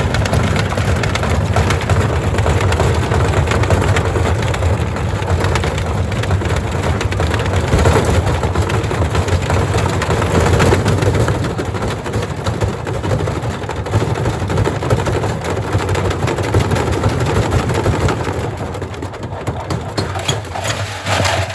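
Gorenje SensoCare washing machine running with heavy bricks in its drum: a loud, continuous clatter of bricks banging inside over a low rumbling hum of the drum and motor.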